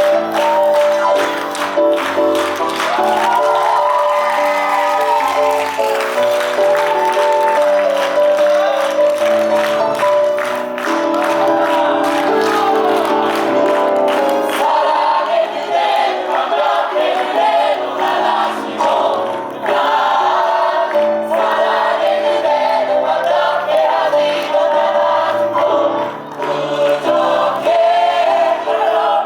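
Several voices singing together over instrumental accompaniment, with a steady beat that is prominent for the first half and then drops back.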